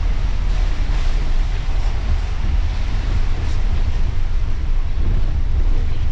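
Inside a moving coach's cab on a rain-soaked road: steady low engine and road rumble with an even hiss of wet tyres and rain.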